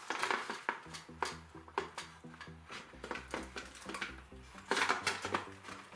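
Background electronic music with a steady beat, over clicks, knocks and rustles of a plastic hoverboard casing being handled; the loudest cluster comes about five seconds in.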